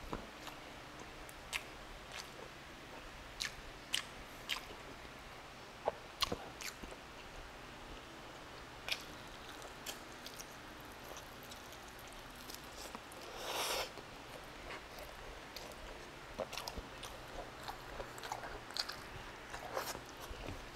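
Close-up mouth sounds of a person eating braised beef stew by hand: scattered wet smacks and clicks from chewing and licking sauce off the fingers. About 13 seconds in comes one longer, louder wet sound.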